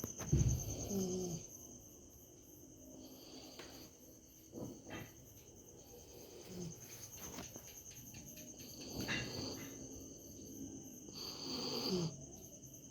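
A sleeping dog snoring: slow, breathy snores every three seconds or so, some ending in a short pitched snort, the loudest about half a second in. A steady insect chirping runs underneath.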